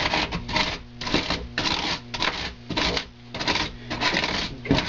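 A steel ruler's edge scraping and tearing into extruded polystyrene foam in repeated quick strokes, about two to three a second, as rough rock shapes are carved out.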